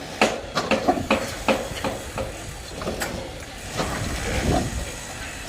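Sharp knocks, about two a second, for the first couple of seconds, then a steady hissing noise with a low rumble.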